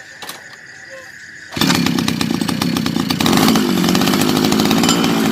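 Small two-stroke grass-cutter engine mounted on a bicycle, running loud with a fast, buzzy firing beat. It comes in abruptly about a second and a half in, after a quieter start.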